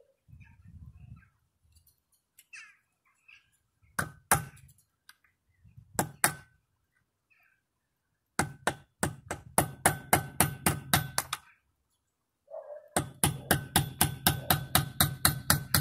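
Hammer striking a steel punch held against the cut outer steel ring of a locking wheel nut to open it up: two pairs of blows, then two fast runs of about five strikes a second, each blow a sharp metallic clink with a short ring.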